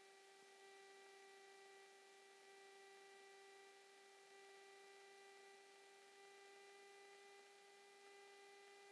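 Near silence with a faint steady electrical hum of a few even tones.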